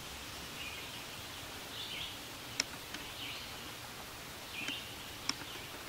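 Quiet woodland background with a bird chirping faintly, a short call about every second and a half, and two sharp ticks.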